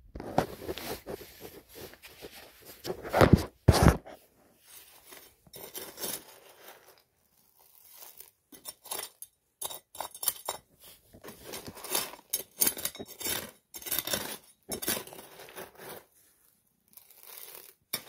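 Dry concrete mix scraped and scooped with a metal scoop and poured from a paper bag, crunching and rustling in irregular bursts. Two loud knocks come between three and four seconds in.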